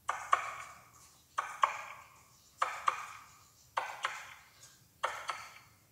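A horse jogging at a sitting trot: sharp, ringing clinks come in pairs, one pair about every second and a quarter, in time with the horse's stride.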